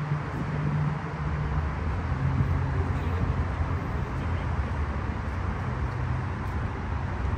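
Steady traffic noise from a busy multi-lane highway: an even rumble of passing cars with low engine hum that shifts slowly in pitch.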